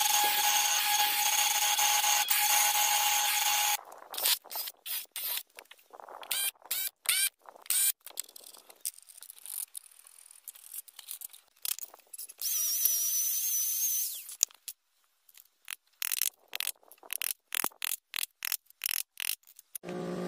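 A woodworking power tool runs steadily for about four seconds, then cuts off. It is followed by a quick series of short scraping and rubbing strokes on wood. About halfway through, a power tool runs briefly with a high, wavering whine.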